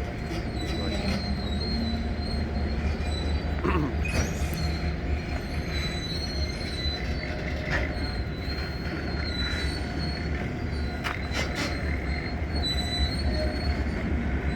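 Freight train backing slowly: a steady low locomotive rumble, steel wheels squealing thinly against the rail on and off, and a few metallic clanks.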